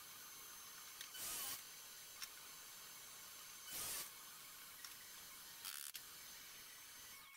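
Faint steady hiss with three short swishing rasps, about a second in, near the middle and late on, from the glue-up of a wooden bowtie key: wood glue squeezed from a plastic bottle and brushed into the key's recess.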